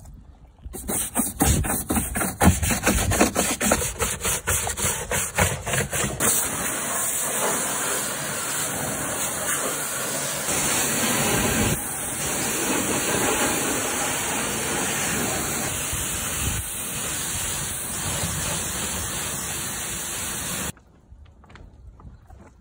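Pressure-washer jet spraying water into a truck's wheel arch and plastic arch liner: a loud hiss of spray. For the first few seconds it comes in rapid choppy pulses, then holds steady before stopping abruptly near the end.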